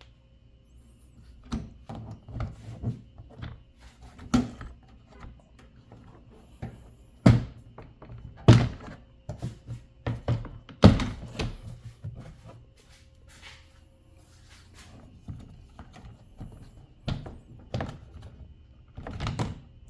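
Plastic clips popping and the plastic front air intake cover under a Tesla's hood knocking and clattering as it is pried loose and lifted off. Irregular clicks and knocks throughout, the loudest a few sharp knocks in the middle.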